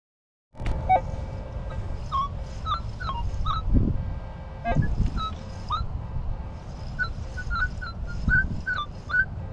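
Minelab E-TRAC metal detector sounding short chirping tones that jump up and down in pitch as the coil is swept over a target, fluttering toward a high tone, which the detectorist takes for possible silver. Low rumble and a few dull thumps underneath.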